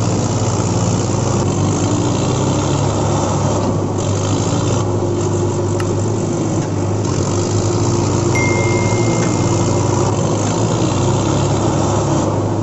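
Tractor engine running steadily under load as a low, even drone.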